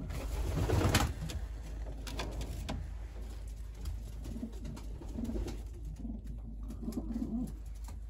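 Domestic pigeons cooing in a loft, a run of low, warbling coos in the second half. A brief rustle in the first second is the loudest sound.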